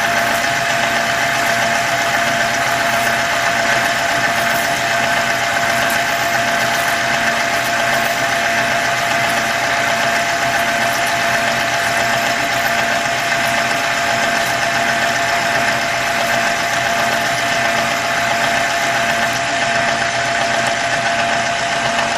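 Milling machine running steadily, its small cutter cutting teeth into a brass contrate wheel for a carriage clock, with a constant whine over the motor's hum. The sound cuts off abruptly at the very end.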